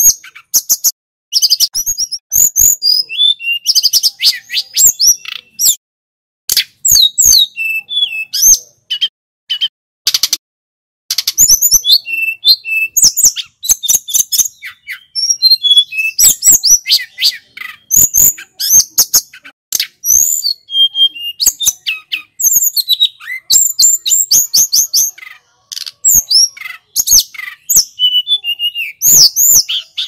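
A hill blue flycatcher (tledekan gunung) singing a long run of loud, rapid, high sweet warbling phrases of quick rising and falling notes, with short pauses between phrases.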